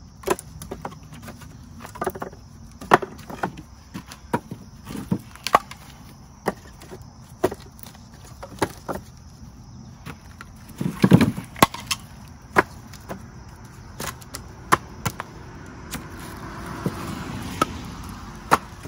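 Split firewood pieces clunking against each other and the wooden frame as they are stacked into a firewood bundle rack. There are sharp, irregular knocks about once a second, with a louder cluster of knocks about eleven seconds in.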